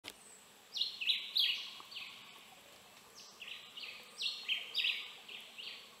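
Forest ambience: a series of short, high, descending chirps from a calling animal. They come in two bursts, the first about a second in and the second about three seconds in, over a faint steady high-pitched hum.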